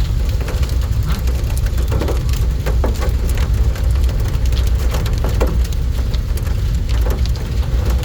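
Heavy rain pouring down and splashing on hard surfaces, a dense, steady patter of drops over a low rumble.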